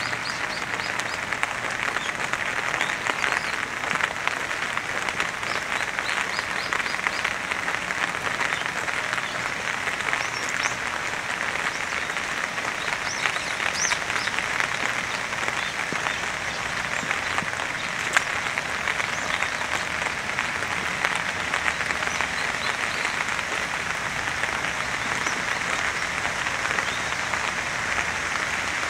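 Steady rain pattering, a dense even crackle.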